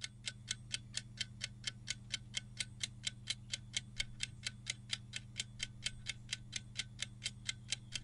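Clock-ticking sound effect marking a quiz countdown timer: an even tick about four times a second over a faint steady low hum.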